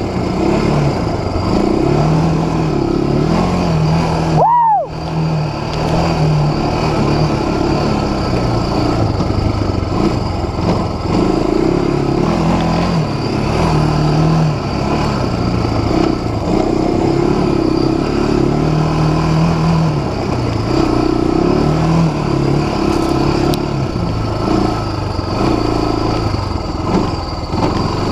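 Four-wheeler (ATV) engine running under a rider, its note rising and falling as the throttle is opened and eased off.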